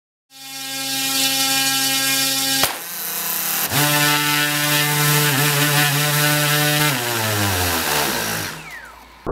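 DJI Inspire 1 quadcopter's brushless motors and propellers spinning at full speed with a steady whine. A single sharp crack comes about two and a half seconds in, and the whine comes back a little higher in pitch. From about seven seconds the motors spin down, the whine falling in pitch and fading.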